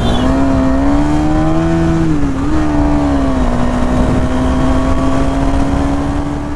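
KTM Duke 250's single-cylinder engine running at a steady cruise under the rider, over road and wind noise; its pitch climbs a little, dips briefly about two seconds in, then holds steady.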